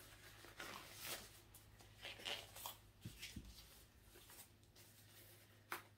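Faint, irregular rustling of gloves being pulled onto the hands.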